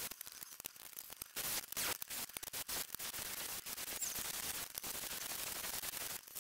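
Cordless drill boring through the aluminium splice plates of a wing spar: a steady hiss broken by irregular crackles as the bit cuts the metal.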